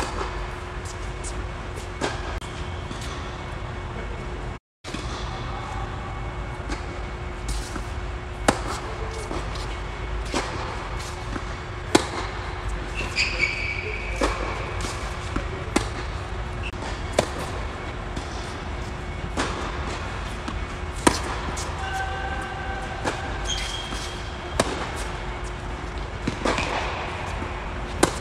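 Tennis rally on an indoor hard court: rackets striking the ball and the ball bouncing, a string of sharp pops every second or two that echo in the large hall, with a few brief squeaks.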